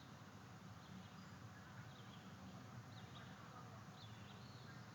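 Faint high-pitched bird chirps, short and scattered, over a steady low background hum.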